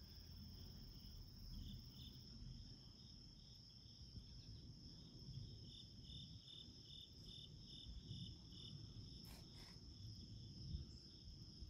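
Crickets and other insects calling faintly: a steady high drone, with a chirping at about two or three a second for several seconds in the middle.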